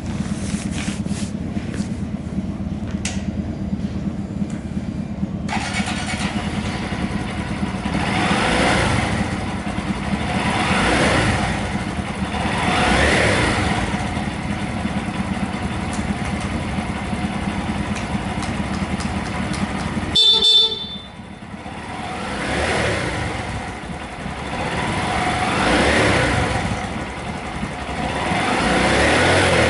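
Honda Monkey 125's small single-cylinder engine idling steadily, with other traffic swelling past several times. A short horn beep about twenty seconds in, after which the idle is no longer heard.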